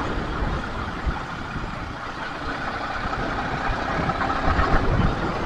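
Yamaha R15 V3 motorcycle's single-cylinder engine running while under way, mixed with a steady noisy rush of road and air.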